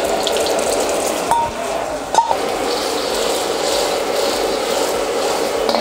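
Restaurant wok burner running at full heat with egg sizzling in hot oil in the wok, a steady rush. A metal wok ladle knocks against the wok twice, about one and two seconds in.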